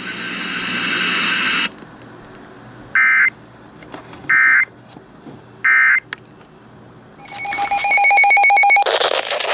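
Emergency Alert System data tones: a brief stretch of steady static, then three short identical bursts of the digital end-of-message code, about a second and a half apart. Near the end a harsh, rapidly pulsing buzz starts, the attention signal of the next alert.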